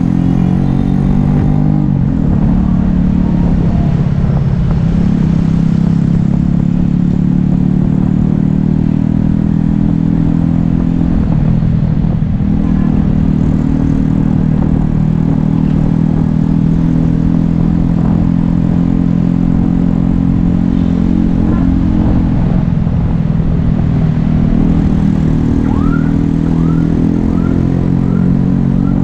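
On-board sound of a Yamaha Taurus motorbike cruising at steady speed, its engine holding an even note that dips briefly a few times, over a heavy low rumble of wind and road noise. A few short rising chirps come near the end.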